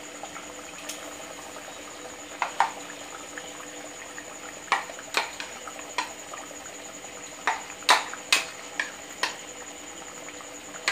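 Pot of chicken and puréed-spinach curry cooking on the stove: about a dozen irregular small clicks and plops as the thick sauce bubbles, with a spatula stirring in the pot near the end.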